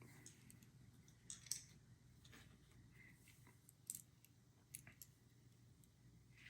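Near silence with a few faint, scattered clicks and light taps of small hardware being handled: the motherboard settling on its case standoffs and mounting screws being readied.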